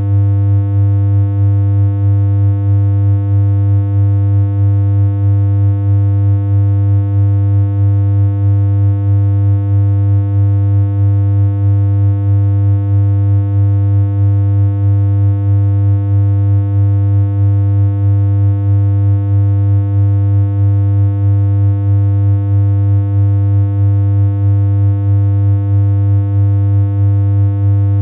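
Steady, loud, low synthesized electronic hum, one unchanging buzzy tone with a slight regular pulse a little over once a second.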